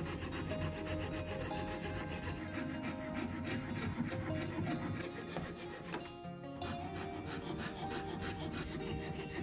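Fine-bladed fret saw cutting through a block of epoxy resin and wood in quick, repeated rasping strokes, with a short pause about six seconds in. Soft background music runs underneath.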